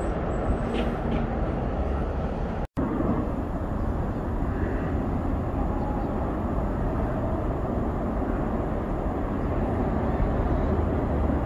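Steady outdoor background rumble, with no distinct events. There is a split-second dropout to silence a little under three seconds in.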